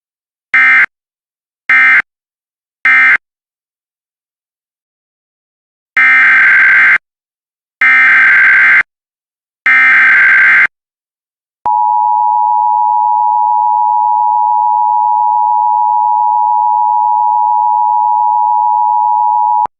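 Emergency Alert System signalling: three short screeching SAME data bursts (the end-of-message code closing the previous alert), then, about three seconds later, three longer one-second SAME header bursts announcing a new alert. These are followed by the steady two-tone EAS attention signal, held for about eight seconds and cutting off just before the end.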